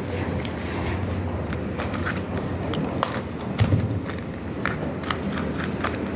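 Scattered light clicks and taps over a steady low hum, with one louder knock about three and a half seconds in.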